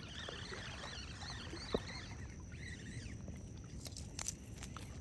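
Water lapping and sloshing around a wading angler while a hooked catfish is played on a bent spinning rod, with a few sharp clicks, the loudest about two seconds in.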